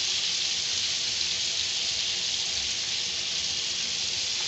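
Flour-and-egg-coated chicken pieces deep-frying in a pot of hot oil: a steady, even sizzle.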